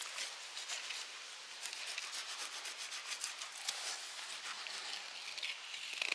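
Knife blade scraping along the backbone of a zander as it is filleted: a faint, continuous scratchy rasping, the sign that the blade is running on the bone.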